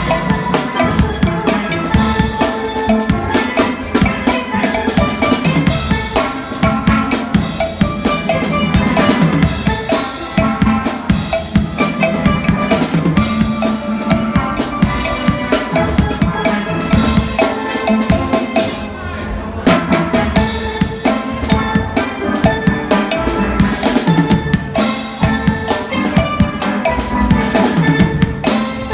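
Steel band playing: several steel pans carry the tune over a rock drum kit beat of bass drum and snare, with a short lull about two-thirds of the way through.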